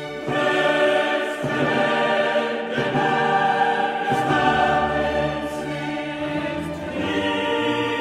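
Background choral music: a choir singing long held chords that shift every second or two, swelling louder just after the start.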